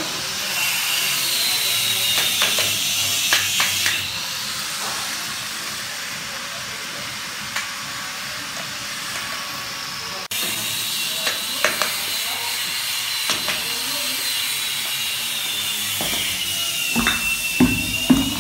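Bricklaying: a trowel taps and scrapes on fresh bricks and mortar, giving scattered short clicks and knocks, with a cluster of knocks near the end. A steady hiss with a faint wavering high whine runs under it throughout.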